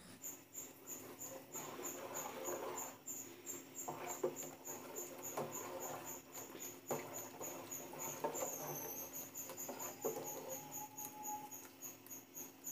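A metal spoon or ladle stirring and knocking in a cooking pot as masala for sambar is fried and thinned, with irregular clinks and scrapes. Behind it runs a steady high-pitched chirping, about five chirps a second.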